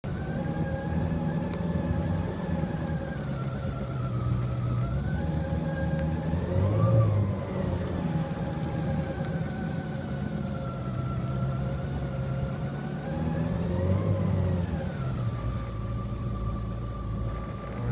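Jet ski engine running under way, its pitch rising and falling twice, then settling to a steady tone for the last couple of seconds.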